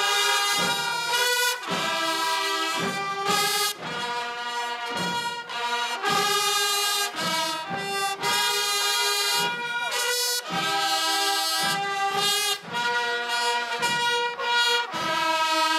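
Brass band music: a melody played in held notes with short breaks between phrases.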